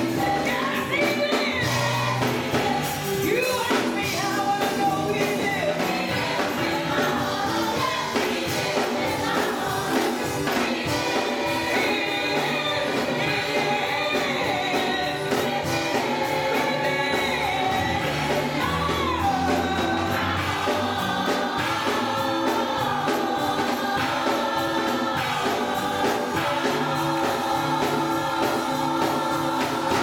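Gospel choir singing, with instrumental accompaniment: a bass line and a steady beat.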